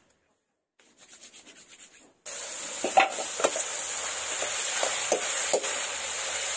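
Pork and taro sizzling in a metal kadai while a metal spoon stirs and scrapes against the pan several times, starting about two seconds in.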